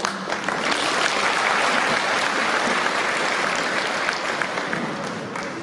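Audience applauding, steady at first and fading out over the last second.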